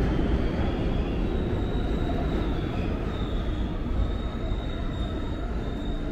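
New York City subway train rumbling through the station, with a thin high wheel squeal over the rumble from about a second in; the rumble slowly gets quieter.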